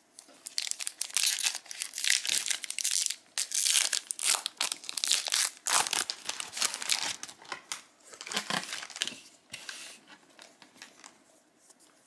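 A trading-card booster pack's foil wrapper crinkling and being torn open, with dense crackling for most of the stretch and only faint rustling in the last couple of seconds.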